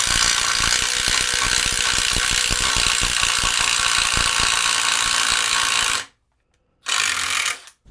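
Milwaukee M12 Fuel impact driver hammering continuously under load as it bores a 1-1/4 inch self-feed bit into wood, its impact mechanism engaged throughout. It stops about six seconds in, then runs again in a short burst near the end.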